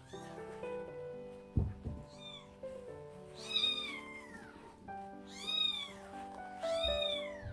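Very young kitten mewing: four high cries, each rising then falling in pitch, over background music. A low thump comes about one and a half seconds in.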